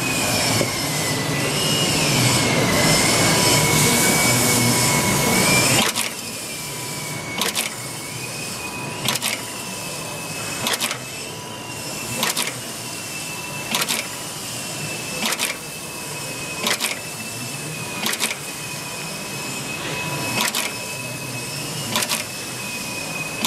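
HUENCHEN HC-5XA snap fastening machine running with a steady motor whine, louder for the first few seconds. From about six seconds in it clacks once every second and a half or so as each stroke sets a snap fastener into a polypropylene file sheet, about a dozen strokes in all.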